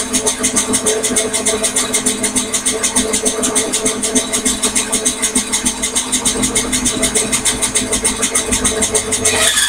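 Microlux variable-speed bandsaw running through a test cut, a steady motor hum with a fast, even pulsing.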